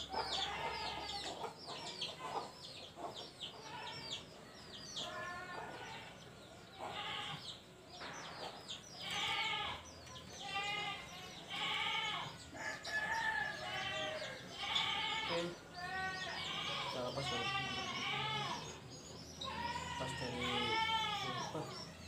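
Chickens clucking and calling: a long string of short calls that each rise and fall in pitch, coming more thickly in the second half.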